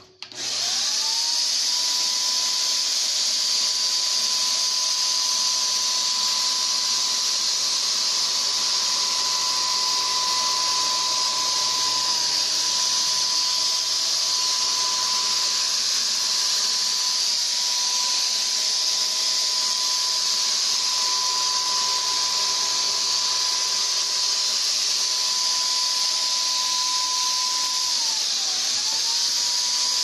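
Electric HVLP paint sprayer's turbine switching on and running, its whine climbing quickly to a steady high pitch under a loud rushing hiss of air. The whine sags briefly a few times and dips deeper near the end before recovering.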